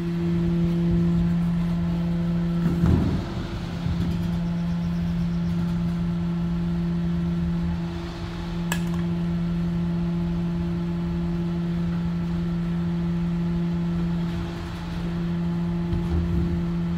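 Rear-loader garbage truck's engine running with a steady drone. A clatter comes about three seconds in, and a sharp click near the middle.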